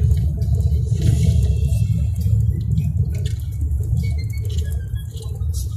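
Steady low rumble of a car driving along, heard from inside the cabin: road and engine noise.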